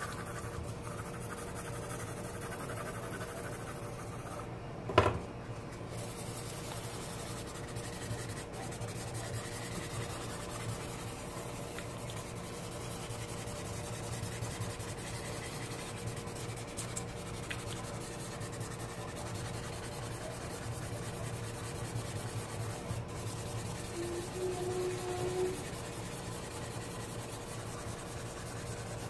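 Drawing paper rubbed with a shader, blending pencil shading into a sketch: a continuous soft rubbing. A single sharp knock about five seconds in.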